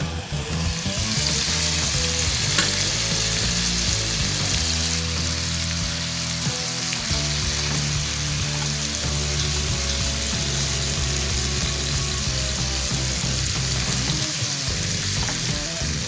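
Food sizzling as it fries in a 20 cm aluminium skillet, the sizzle swelling up about half a second in and loudest over the first few seconds. Background music plays underneath.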